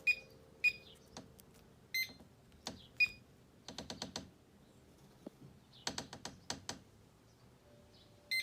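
Kwikset SmartCode 917 electronic keypad deadbolt being keyed in. The early button presses each click with a short electronic beep, four times. Later come two quick runs of clicks without a beep, during a failed attempt to program the lock.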